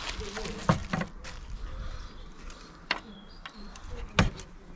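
Handling noise from a small metal UCO candle lantern being drawn out of its drawstring fleece bag: soft rustling with four sharp knocks, the loudest near the end.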